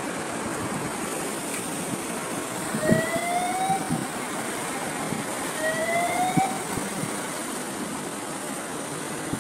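Steady rush of sea surf and wind along a rocky shore, with two short rising calls about three seconds apart and a few soft knocks.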